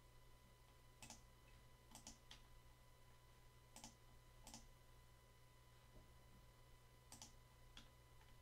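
Faint computer mouse clicks, about seven, some in quick pairs, over a steady low electrical hum in an otherwise near-silent room.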